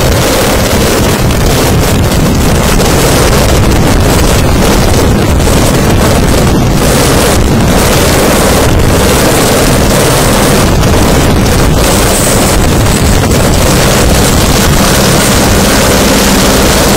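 Light helicopter landing, its rotor and turbine engine running loud and steady as it descends and settles onto its skids on grass, with rotor downwash buffeting the microphone.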